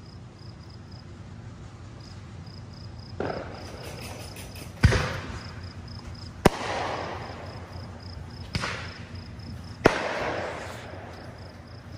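Fireworks going off: five booming bursts a second or two apart, the loudest about five and ten seconds in, each trailing off in a crackling tail that fades over a second or two.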